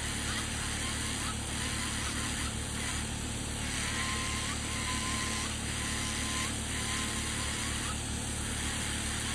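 Electric podiatry nail drill running with a small burr against a thickened fungal toenail: a steady motor hum with a faint higher whine that comes and goes about once a second.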